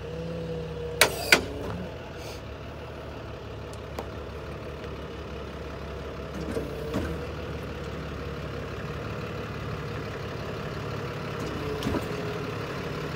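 Tow truck engine running steadily while the truck backs in and maneuvers, with two sharp knocks about a second in and a few lighter knocks later.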